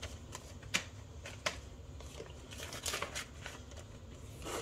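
Polymer banknotes and a plastic binder pocket being handled, with rustling, crinkling and scattered light snaps. The two sharpest snaps come under a second in and about half a second later.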